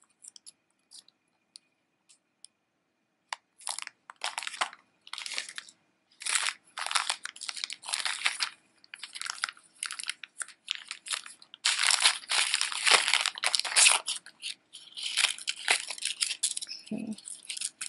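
Thin clear plastic packaging crinkling and rustling in the hands in irregular bursts, as a carded necklace is handled and unwrapped. A few faint ticks come first, and the crinkling starts about three seconds in and is loudest past the middle.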